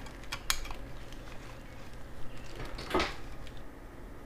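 A few faint clicks about half a second in and one louder soft knock about three seconds in, as a USB tester and connector are handled on the workbench.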